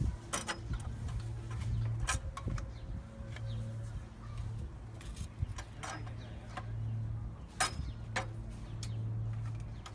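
Scattered light metallic clicks and taps as copper pipe and a fitting are handled and set in place, about eight over the stretch, over a low steady hum that swells and fades every couple of seconds.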